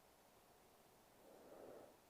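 A sleeping woman's breath over near silence: one soft breath swells and fades just past a second in.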